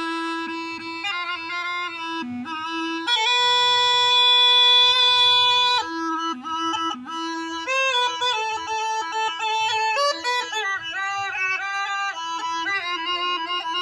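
Snake charmer's been (pungi), a gourd-bodied reed pipe, playing a lively folk tune with a bright, reedy tone. A long held note about three seconds in, then quick ornamented phrases.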